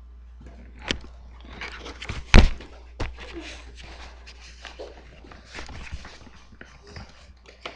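Handling noise from a camera being picked up and carried: scattered knocks and rustling, with one loud thump about two and a half seconds in.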